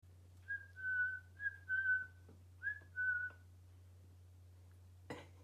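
Whistling in three short two-note phrases, each a brief note and then a slightly lower, longer one, with a single knock near the end.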